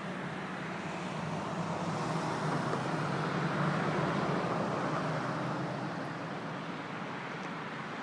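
Road traffic noise: a steady hum that swells to a peak about halfway through as a vehicle passes, then fades.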